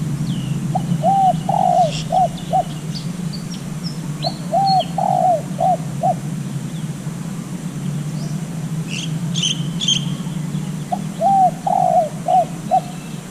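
Decoy zebra dove cooing: three phrases of about six quick notes, a few seconds apart. Small birds chirp high above it, over a steady low hum.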